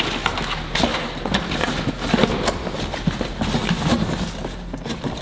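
Hands rummaging through a cardboard box and its packaging: rustling with a run of irregular knocks and taps.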